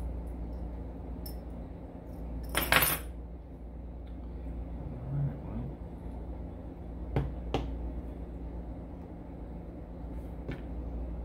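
Small brass parts of an Evva 3KS lock cylinder clinking and clicking as they are handled and fitted during reassembly: a short metallic rattle about three seconds in, then a few sharp clicks.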